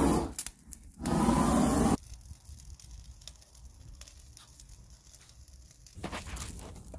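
A loud rushing roar that dips briefly and stops about two seconds in. After that comes the quieter crackling and popping of brush and wood burning in an open steel ring kiln, growing louder near the end.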